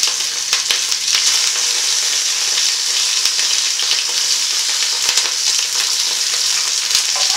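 Pieces of snowshoe hare sizzling as they brown in smoking-hot olive oil in a cast-iron Dutch oven. It is a steady loud sizzle with frequent small crackling pops.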